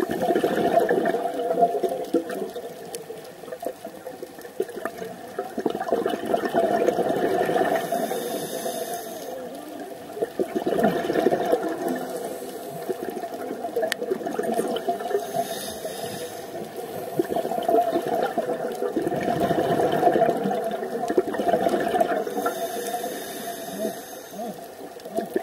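Scuba diver's regulator breathing underwater: long bubbling rushes of exhaled air, each a few seconds long, with a short hiss of inhalation between them, in about three breath cycles.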